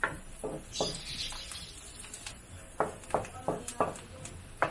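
Wooden spatula stirring chopped onions in a metal wok, scraping and knocking against the pan in a string of short clacks, bunched near the start and again in the second half.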